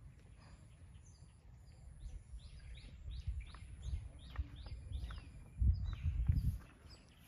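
Small birds chirping in quick repeated notes that fall in pitch, with a low rumbling noise on the microphone that swells for about a second near the end.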